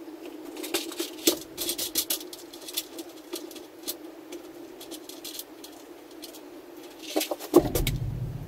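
Small parts clicking and rattling as they are picked out of plastic parts drawers, over a steady low hum. A louder knock with a short low rumble comes near the end.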